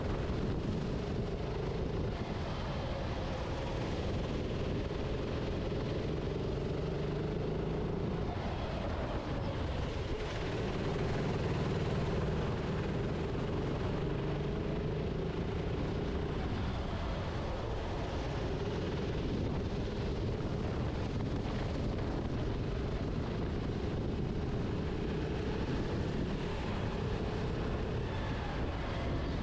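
Racing kart engine running hard, its revs dropping and climbing again a few times as the kart brakes for corners and accelerates out, heard from the onboard camera with wind noise.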